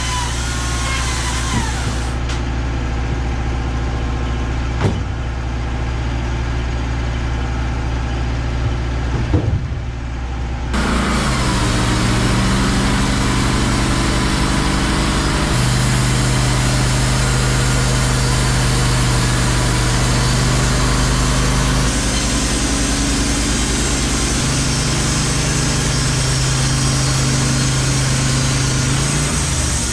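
The engine of a Wood-Mizer LT15 Wide band sawmill runs steadily. About 11 seconds in, the sound jumps louder and fuller and the engine's pitch dips under load as the band blade enters the eastern white pine log and the saw head cuts along it.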